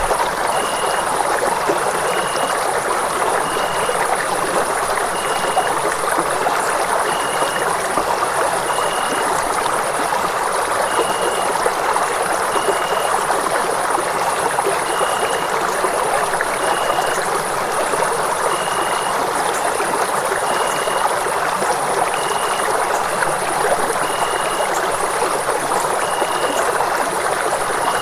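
Running water flowing steadily, an even rushing sound. Faint short high chirps recur every second or two above it.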